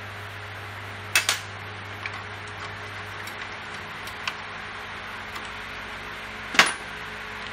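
Roller drive chain of a Honda CT110 being worked off its front sprocket by hand, the links clinking against the sprocket and casing: a double clink about a second in, a few light ticks, then a louder clank near the end. A steady low hum runs underneath.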